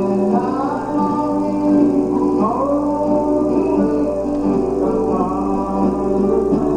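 Gospel music: a recorded song with singing over guitar accompaniment.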